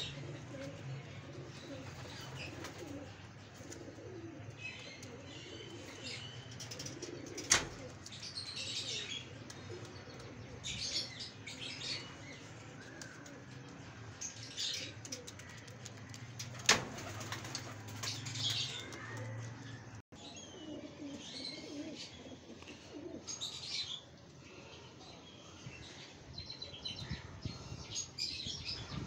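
Teddy pigeons in a loft: low cooing and wing movement, with repeated high chirps and two sharp clicks.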